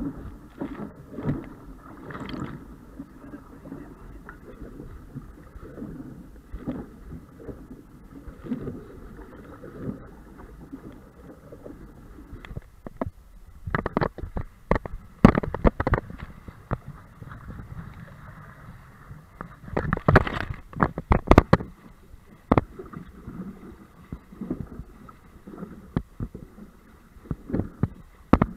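Waves slapping against a small sailboat's bow and spray splashing over the foredeck, over a steady rush of wind and water. Clusters of sharper splashes come about fourteen seconds in and again about twenty seconds in.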